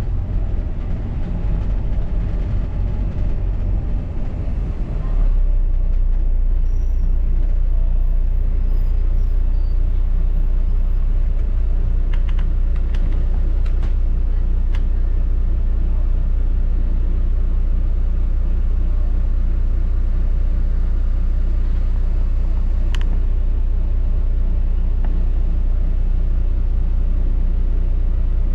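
Steady low rumble of a double-decker bus on the move, heard from on board, with a few faint clicks and rattles.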